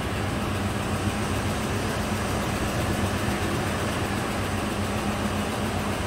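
Dodge 4.7-litre V8 idling rough with a misfire on cylinder 4, a steady low running note. The miss comes from a cam follower that has spat out of the number 4 exhaust valve, likely from a collapsed lifter.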